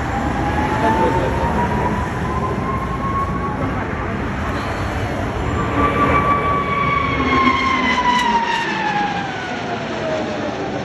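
An aircraft flying past, its engine noise a loud, steady rumble with a whining tone that falls in pitch over several seconds as it passes.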